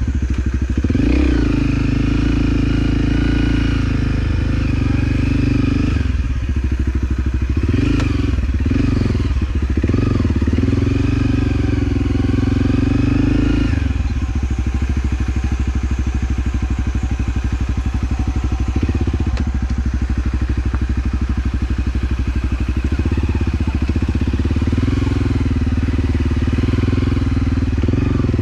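Motorcycle engine running on an off-road ride, the revs rising and falling with the throttle in the first half, dropping about halfway through and then running steadily.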